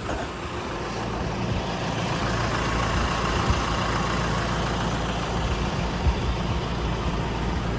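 John Deere tractor engine idling steadily, a low even hum under a broad hiss.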